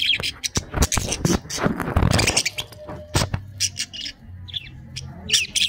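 Budgerigars chirping in short high calls, with a burst of chirps at the start and again near the end, over a run of sharp clicks and crackling from birds pecking seed and tearing greens in a metal feeding dish.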